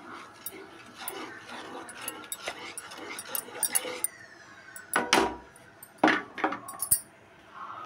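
Wooden spatula stirring thickened milk and sugar in a non-stick kadai, scraping and clicking against the pan, followed by two louder knocks about five and six seconds in.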